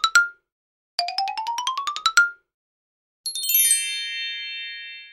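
Short intro jingle: a quick rising run of bright ringing notes ending on a high note, played twice, then a falling chime cascade that settles into a held chord and fades out near the end.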